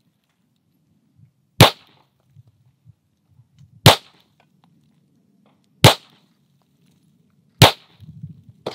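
Pistol shots fired slowly and deliberately: four single shots about two seconds apart, each a sharp crack with a short ring-out. This is an unhurried precision group, each trigger press made for accuracy rather than speed.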